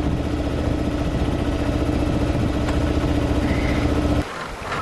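A sailing yacht's inboard engine running steadily under way: a low drone with one held hum. It cuts off abruptly about four seconds in.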